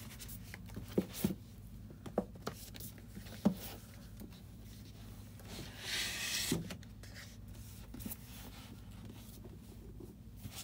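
Hardcover books being slid into a row on a bookshelf and pushed into place: a handful of short knocks as they bump the shelf and each other, and a brief scraping slide about six seconds in.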